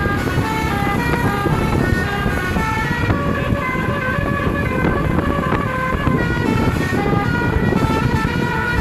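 Bus 'telolet' multi-tone air horn playing a fast tune of short stepped notes, jumping up and down in pitch several times a second, over a heavy low rumble.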